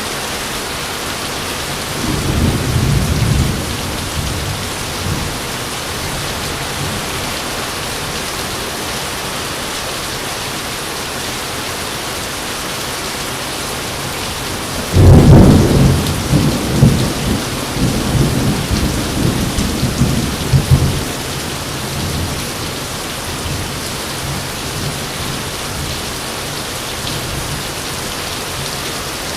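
Steady heavy rain with thunder: a low rumble about two seconds in, then a louder clap about fifteen seconds in that rolls on for some six seconds.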